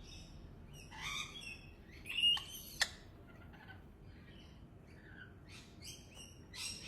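Rainbow lorikeet giving short, harsh screechy chirps in irregular bursts, loudest a little after two seconds in, with one sharp click just after.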